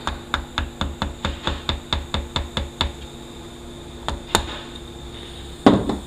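Red T-handle screw tool being spun by hand to back it out. It clicks rapidly and regularly, about four or five a second, for nearly three seconds, then gives a few scattered clicks and a heavier thump near the end as it is set down on the bench.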